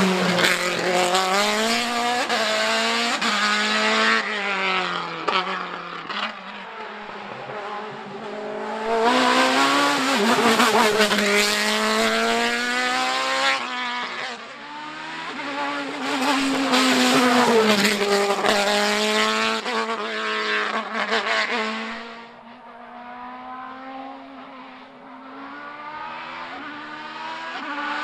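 Open-wheel formula race cars accelerating hard, engines revving high and dropping back with each gear change. The sound swells and fades over several passes and is distant and quieter near the end.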